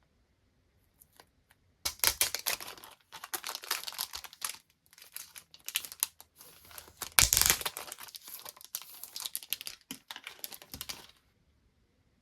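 Parcel and goods packaging being crinkled and torn open by hand, a run of irregular rustling and ripping that starts about two seconds in, peaks near the middle and stops near the end.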